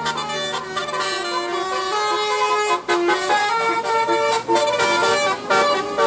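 Indonesian bus telolet horn, a multi-trumpet musical air horn, playing a tune of quickly changing notes.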